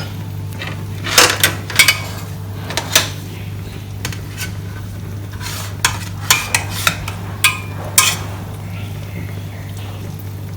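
Metal utensils clinking against a pot and dish as a steamed fish is lifted out, about ten sharp clinks with short ringing, several close together near the middle. A steady low hum runs underneath.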